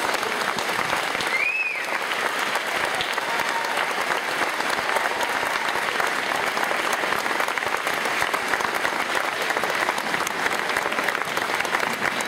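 Audience applauding, a steady patter of many hands clapping. About a second and a half in, a short whistle rises and falls over the clapping.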